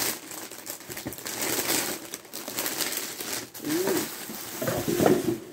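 Clear plastic packaging crinkling and rustling as a dress is pulled out and handled, with short crackles throughout. Near the end a short wavering low hum sounds twice.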